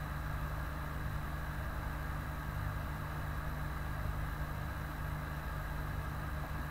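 Steady low hum with a constant hiss over it, unchanging throughout.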